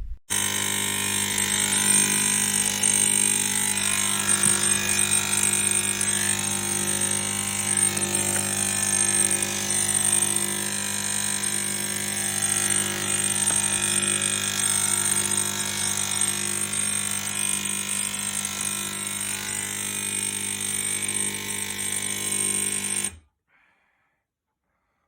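Swan SK22110BLN espresso machine's pump buzzing loudly and steadily for about 23 seconds, then cutting off abruptly. It is making far more noise than it is meant to, which the owner takes as a sign that the machine is broken.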